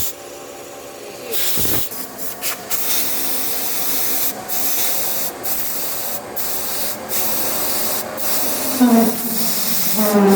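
Special-purpose CNC lathe at work: a steady hissing spray that cuts out briefly several times, then near the end a motor whine that rises in pitch and holds.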